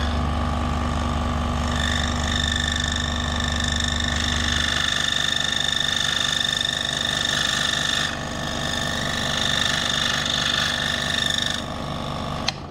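DeWalt DW788 scroll saw running steadily while its blade cuts a thin piece of wood. It is switched off with a click near the end, and the sound stops at once.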